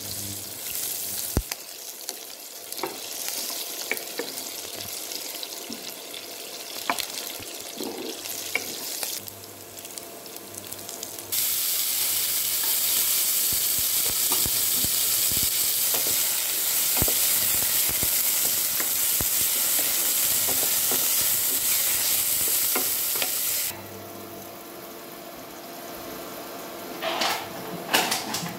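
Hot oil sizzling in a nonstick pan while cumin seeds are stirred with a wooden spatula, with light scraping knocks. About eleven seconds in the sizzle suddenly gets much louder as cubed raw potatoes go into the oil. About a dozen seconds later it drops off sharply as a glass lid covers the pan, and a short clatter comes near the end.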